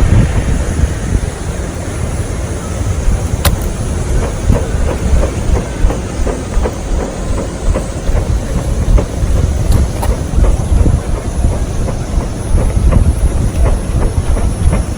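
Wood campfire burning, crackling with scattered sharp pops over a steady low rumble, with one louder pop about three and a half seconds in.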